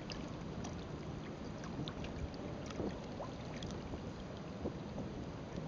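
Water lapping and trickling along the hull of a skin-on-frame kayak sailing slowly in light wind: a steady wash with scattered small drips and ticks.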